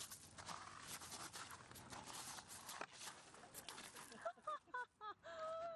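Noisy rustling and scraping with many sharp clicks as a seesaw is bounced hard over gravel. About four seconds in, after one rider is thrown off, come short bursts of a person's voice ending in a held note.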